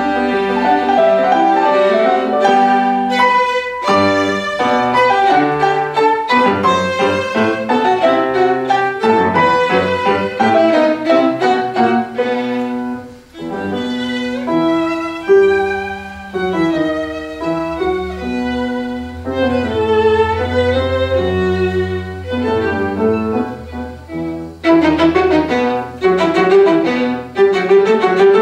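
Violin and grand piano playing a classical sonata together, the violin carrying the melody over the piano, with a brief drop in loudness about halfway through.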